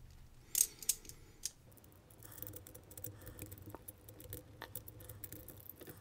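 Cast-metal pieces of a Huzzle Cast Padlock puzzle clicking and sliding against each other as they are twisted in the fingers: a few sharp clicks in the first second and a half, then faint quick ticking.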